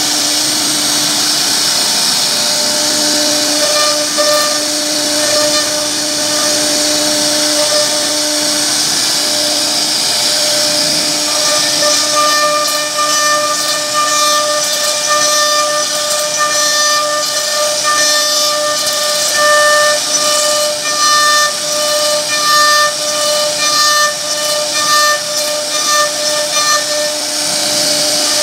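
CNC router spindle whining steadily as its bit carves relief into a wooden panel, with the hiss of cutting wood. From about twelve seconds in the higher whine pulses on and off and the level wavers.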